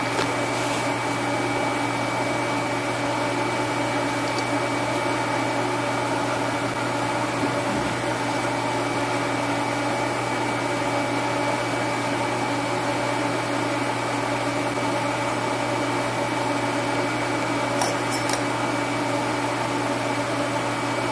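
Steady, unchanging hum of an electric fan or blower with a faint high whine above it.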